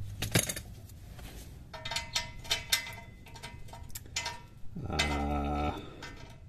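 Hand ratchet and socket working on a rusted exhaust flange bolt: a sharp click, then a couple of seconds of quick ratchet clicks. A brief steady hum comes about five seconds in.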